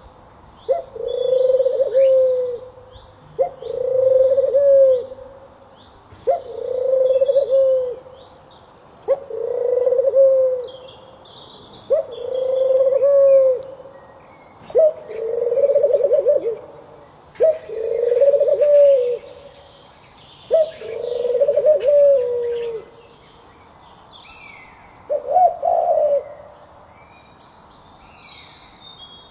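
A bird cooing: about ten low, held coos, each one to two seconds long, repeated every two to three seconds, with a longer pause near the end. Faint high chirps of smaller birds come in between.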